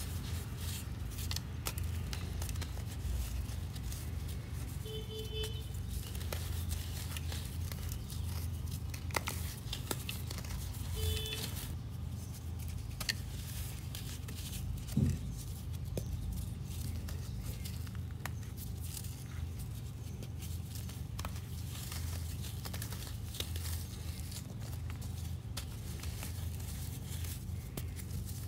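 A dry, chalky reformed block being crumbled by hand into fine sand, giving a gritty crackling and crunching with sand and powder pouring and sifting, over a steady low hum. A single dull thump comes about halfway through.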